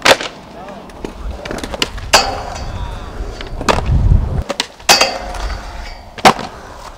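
Skateboard wheels rolling on concrete with a low rumble, broken by several sharp clacks of the board hitting the ground. The loudest clacks come right at the start and shortly before the end, as the board pops and comes down on the low metal rail.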